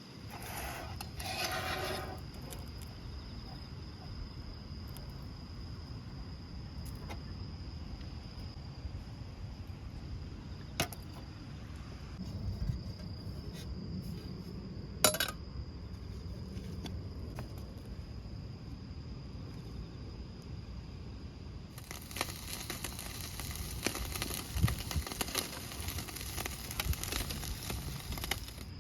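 Crickets trilling on one steady high note, over a low rumble, with a few sharp clicks of things being handled. For the last several seconds a crackling, clattering noise joins in.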